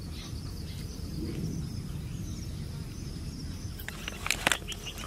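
Faint steady chirping over a low outdoor background; about four seconds in, a quick flurry of sharp crinkles and clicks from aluminium foil food containers being handled and stacked.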